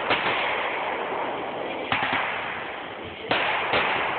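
Aerial fireworks bursting: four sharp bangs, the loudest about three seconds in, with a steady hiss between them.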